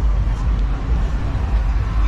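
Street ambience of a busy boulevard: a steady low rumble with car traffic on the road.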